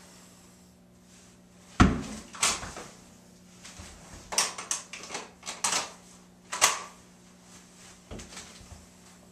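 A tennis ball bouncing on a wooden floor with a sharp knock, then a string of short clicks and rustles as a jacket is swept back and a pistol is drawn from a belt holster, with another sharp knock a little later.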